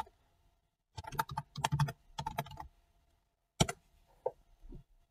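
Computer keyboard being typed on: quick runs of key clicks as a command is entered, then one single, sharper keystroke about three and a half seconds in.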